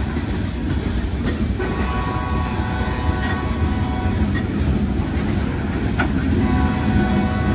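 Wheeling & Lake Erie freight train's gondola cars rolling past close by: a steady rumble of steel wheels on rail with a few clanks. A high, steady ringing tone rides over the rumble from about a second and a half in, fades, and returns near the end.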